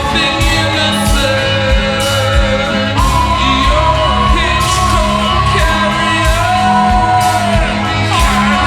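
Slowed-down, reverb-heavy post-punk song: a female lead voice holds long, wavering notes over a steady bass line and regular drum hits.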